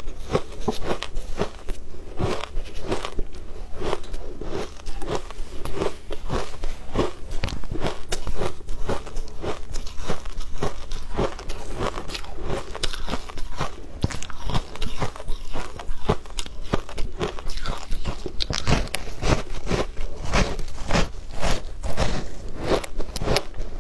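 Shaved ice crunching as a person bites off chunks and chews them: a rapid, unbroken run of crisp, loud crunches.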